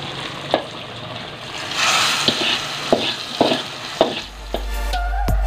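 Fried spice paste with lemongrass scraped out of a frying pan into a pot of potatoes in broth. It hisses briefly as it hits the liquid, with several metal clinks of the spatula against the pan and pot. Near the end a steady low hum and the start of music come in.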